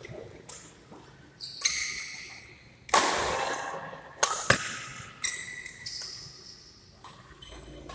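Badminton rally: a racket strikes the shuttlecock sharply several times in the first four and a half seconds, the hits ringing on in the hall, with short squeaks of court shoes on the floor.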